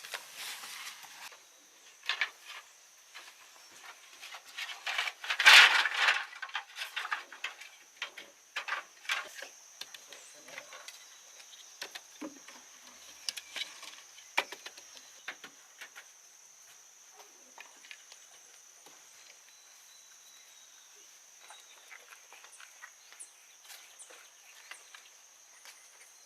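Insects droning steadily on one high note. Over it come scattered clicks and rustling, loudest in a burst about five seconds in.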